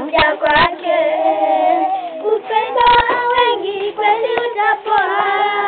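Children singing a song, with hand claps coming now and then.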